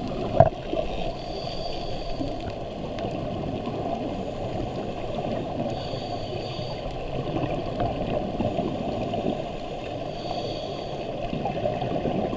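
Underwater noise through a diving camera's housing: a steady low rush of water and bubbles, with a faint hiss about every four and a half seconds, typical of a scuba diver breathing through a regulator. A single sharp knock about half a second in.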